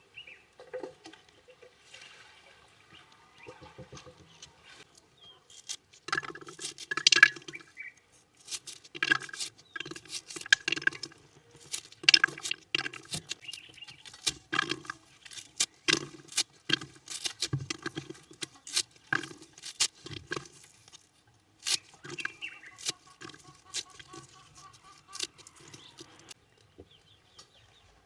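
An irregular run of light taps and knocks, sparse at first and coming thick and fast from about six seconds in, with a short break near three-quarters of the way through.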